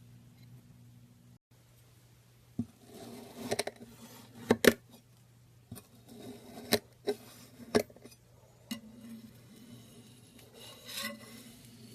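Kinetic sand being scraped and cut, a soft gritty rasp broken by several sharp clicks.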